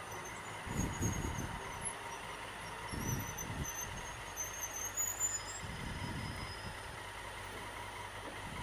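Motorcycle and traffic in slow stop-and-go between concrete underpass walls: a steady traffic hum with a low engine rumble that swells three times as the bike creeps forward. Thin, high squeals drift over it in the first half.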